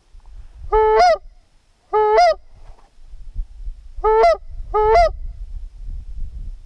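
A hand-blown goose call sounding four short honks, in two pairs, each honk breaking from a low note up to a higher one in the two-note goose style, to call in passing geese.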